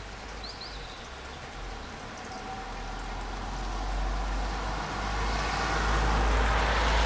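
Steady rain, with the tyre hiss of a car on the wet street growing louder toward the end.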